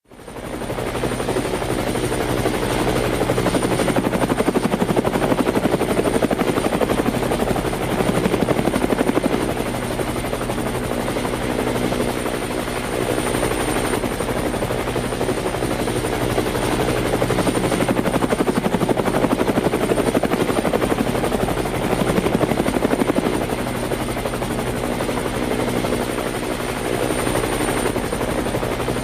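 Helicopter rotor sound: a steady, fast chopping that fades in over the first second, then swells and eases a little in loudness throughout.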